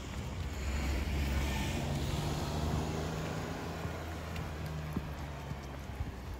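A motor vehicle passing close by. Its engine hum and tyre noise swell about a second in, then slowly fade.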